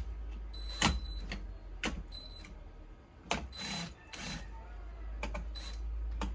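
Clicks and knocks from handling an Ego battery multi-tool power head and working its trigger, with several brief high-pitched whines from the tool.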